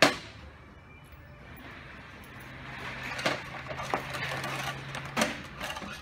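Metal grease tin being handled with a thin metal rod: one sharp clank at the start, then a few lighter metallic clinks as the rod knocks against the tin. A steady low hum runs beneath the clinks through the middle seconds.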